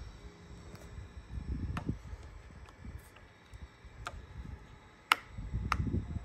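A few sharp, scattered clicks, the loudest about five seconds in, over a low rumble of handling noise. The motorcycle's engine is not running.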